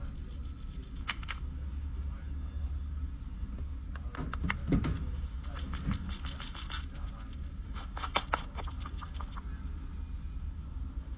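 Quick light taps and clicks from a makeup sponge being dabbed on the face, picked up close by a clip-on microphone. They come in several short runs over a steady low hum.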